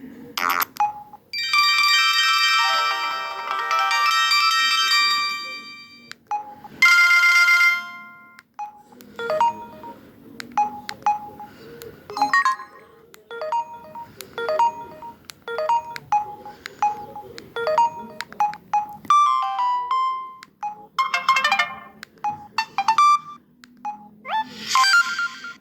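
Samsung SGH-M200 mobile phone playing a series of its built-in ringtones and message alert tones, one after another: short electronic melodies and chimes, with a long run of quick repeated beeps in the middle.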